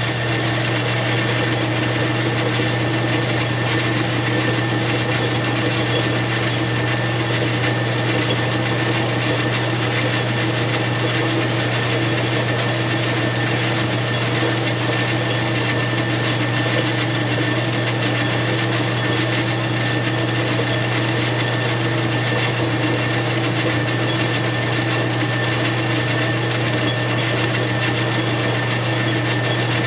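Metal lathe running steadily with its chuck spinning a piston in a holder: an even motor and gear hum with a steady high whine on top.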